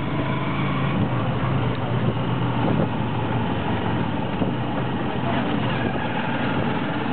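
Motorcycle taxi engine running steadily under load, with a low even hum and road noise.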